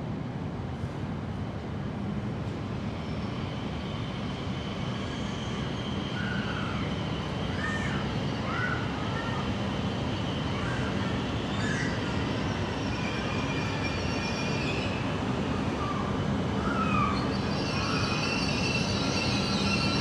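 Train running on the rails, growing slowly louder, with a steady high whine and short squeals from the wheels.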